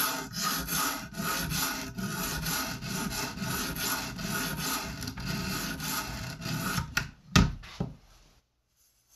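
Coarse 120-grit sharpening stone on an Edge Pro guided arm, rasping back and forth across a knife edge in quick, even strokes, about three a second, raising a burr along the edge. The strokes stop about seven seconds in, and two sharp knocks follow.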